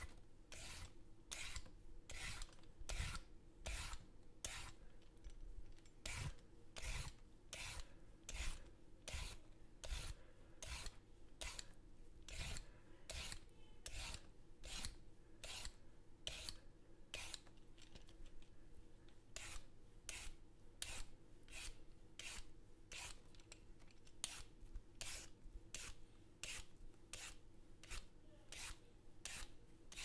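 Metal vegetable peeler scraping down a raw carrot in short, even strokes, about three every two seconds, each stroke shaving off a strip of skin.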